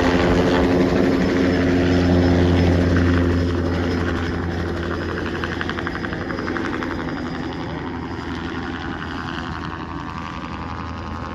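Bell OH-58 helicopter's rotor and turbine engine flying away: loud at first, then fading steadily over the next several seconds as it departs.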